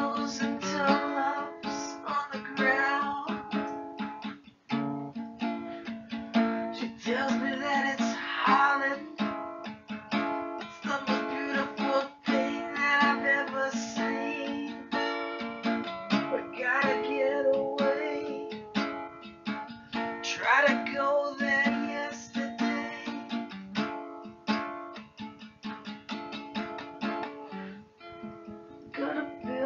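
Music: a song carried by acoustic guitar, with plucked and strummed notes.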